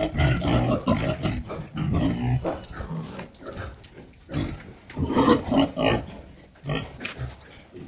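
Pigs grunting and snorting in irregular, overlapping bursts, loudest a little past the middle.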